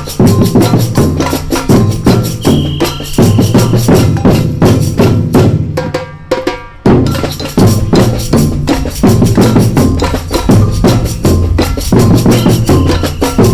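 Music soundtrack built on drums and percussion over a bass line, with a fast, steady beat. The beat thins out briefly about six seconds in, then comes back.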